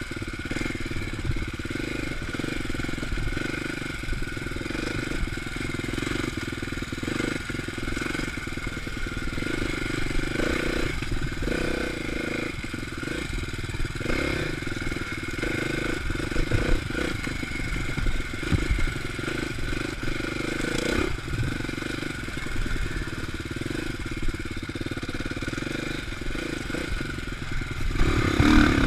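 Dirt bike engine running at steady low trail speed, heard close up from the handlebars, with frequent short knocks and rattles as the bike rides over rough ground. Near the end the engine revs up and gets louder.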